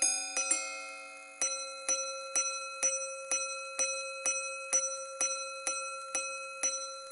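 Chiming gongs of a Patek Philippe Grand Master Chime wristwatch striking the time. Two two-tone strikes come first, then from about a second and a half in a run of about thirteen single strikes on the higher gong, roughly two a second, each ringing on. On a minute repeater this run of high-gong strikes counts the minutes.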